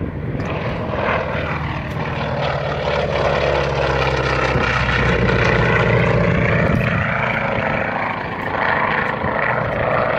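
Vintage twin-engine propeller plane flying past, its engines droning steadily. The drone swells toward the middle and its pitch slides down as the plane goes by.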